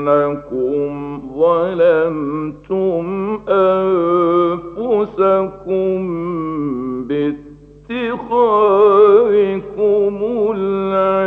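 A man reciting the Quran in the melodic mujawwad style, holding long notes that wind up and down in pitch, with a short breath pause about two-thirds of the way through. It is an old radio recording, with a steady low hum under the voice.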